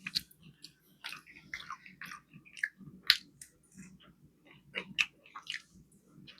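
A person chewing a fish fillet sandwich with the mouth close to the microphone: irregular wet smacks and crunches, loudest at the very start and about three seconds in.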